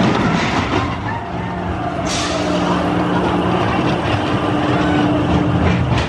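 E&F Miler kiddie roller coaster train rolling along its steel track, its wheels giving a steady rumble with a low hum. A brief hiss comes in about two seconds in.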